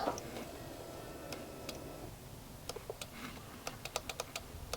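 Light, irregular clicks, coming thicker in the last two seconds, as the Honda Forza 125's controls are worked for a start attempt. The engine does not crank or fire.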